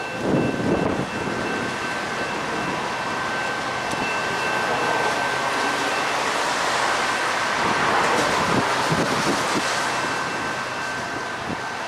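Railroad grade-crossing warning bell sounding as a steady high ringing tone while the crossing activates and the gates lower for an approaching train. The tone breaks off for a few seconds midway, when a swell of road noise from a passing vehicle rises over it.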